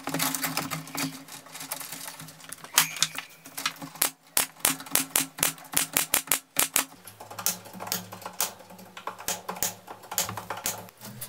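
Pneumatic staple gun firing a quick run of staples, about five a second, fastening chicken wire to a wooden frame, then firing single shots every so often.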